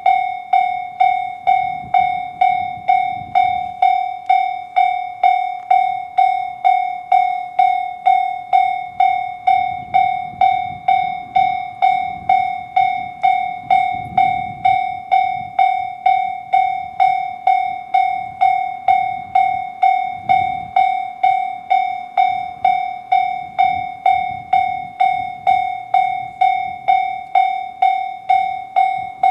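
Japanese level-crossing alarm sounding the JR standard electronic bell: a bright ringing clang repeated evenly at about two strikes a second, each strike fading quickly, signalling that a train is approaching.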